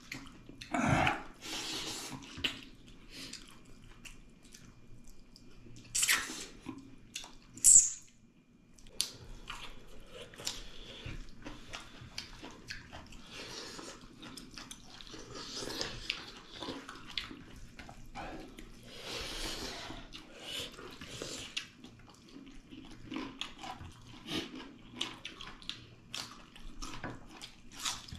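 Two people eating soupy pork-leg and black lentil dal with rice by hand, with wet chewing, lip-smacking and slurping. There are sharper, louder slurps about a second in and around 6 and 8 seconds.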